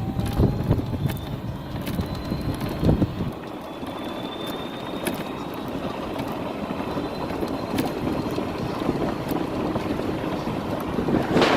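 Electric minibike's motor whining, its pitch rising slowly as it gathers speed, over steady rolling and road noise with a few light clicks. Just before the end a loud rush of wind hits the microphone.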